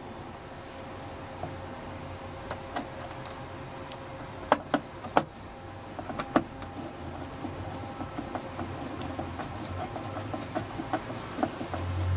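Screwdriver driving a screw through the receiver's circuit board into the metal chassis: scattered clicks and taps, then a run of rapid small ticks from about six seconds in as the screw is turned.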